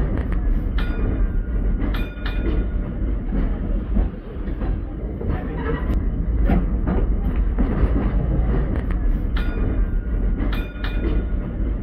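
Brisbane tram 554 running along the track, heard from inside the saloon with its doors open: a steady low rumble of wheels and running gear, clicking over the rail joints. A few sharp metallic clanks ring out about a second in, at two seconds, and twice more near the end.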